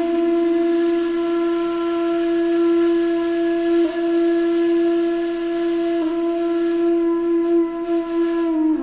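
A single long wind-instrument note, held at one pitch with two brief wavers and dropping to a lower note at the very end.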